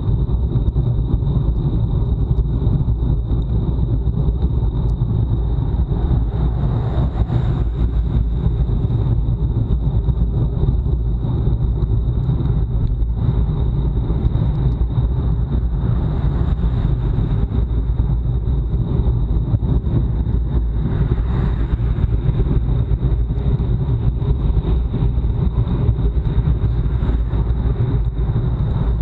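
Wind buffeting an action camera's microphone on a bicycle ridden hard in a time trial: a steady, loud low rumble of rushing air, with a thin steady high tone over it.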